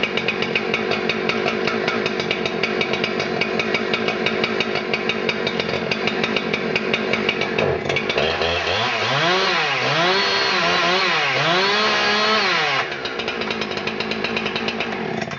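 Husqvarna 372 XP X-Torq two-stroke chainsaw engine running steadily at idle. About eight seconds in, it is revved up and down four times, then drops back to a quieter idle.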